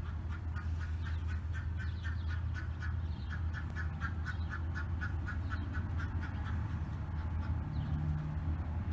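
An animal calling in a rapid series of short, evenly spaced calls, about four a second, in two runs that stop about two-thirds of the way through. A steady low rumble runs beneath.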